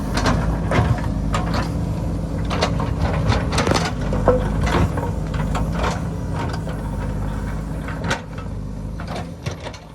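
JCB backhoe loader's diesel engine running steadily while rocks and stones knock and clatter against the bucket and each other as it digs into a rocky hillside. The sound eases down near the end.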